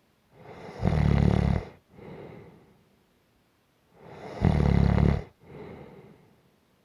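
Gentle snoring: two loud, low snores about three and a half seconds apart, each followed by a softer breath.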